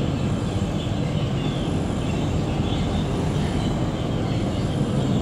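Steady, low, droning rumble of a boat's engines, with an even hiss over it.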